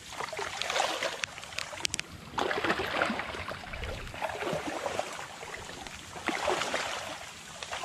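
Boots wading through shallow water and mud, sloshing and splashing in uneven surges.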